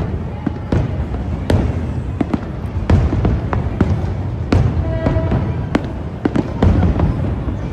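Fireworks display: a dense, irregular run of sharp bangs, several a second, over a continuous low rumble.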